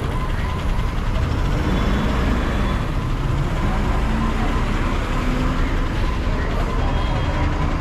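Rear-mounted engine of an Ashok Leyland BS-6 low-floor city bus idling steadily, a constant low rumble.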